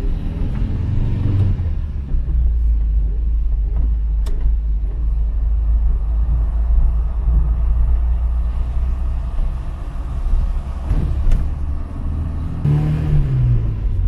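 An old Skoda car being driven on the road, its engine running under load with a heavy steady rumble; the engine note rises and falls about a second in and again near the end, as with a gearchange. Two sharp clicks come through partway. The engine is running normally again after its leaking mechanical fuel pump was replaced.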